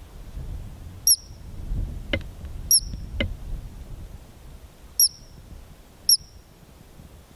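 A ground squirrel giving short, sharp, high-pitched chirps: about five single calls, each a quick dropping note, spaced irregularly a second or two apart.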